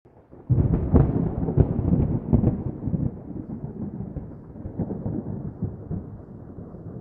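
A thunderclap breaks in suddenly about half a second in, with several sharp cracks over the next two seconds, then a long rolling rumble that slowly fades.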